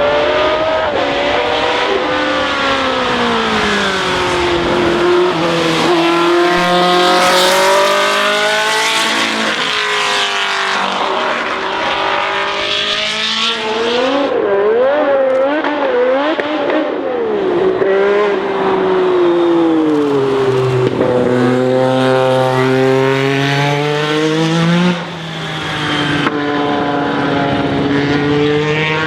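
Historic Formula 1 racing cars running at full throttle past the spectators. The engine pitch climbs and then drops back again and again as the cars change gear, one car following another, with a brief lift off the throttle about 25 seconds in.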